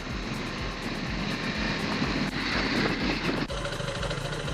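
Motorcycle engine running while being ridden over rough off-road ground. About three and a half seconds in the sound changes abruptly to a steadier engine drone.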